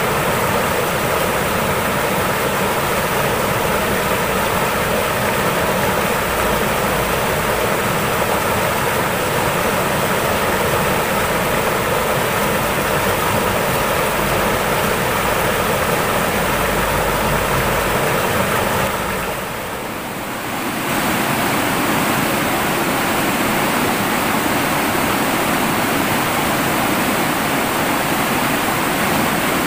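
Fast, shallow river rushing over boulders in white-water rapids: a steady, loud rush of water. It drops briefly about two-thirds of the way through, then returns.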